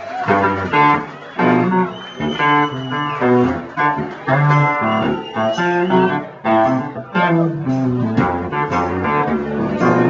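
Live band music led by plucked guitar, notes struck in quick succession over a low bass line, with a few sliding notes.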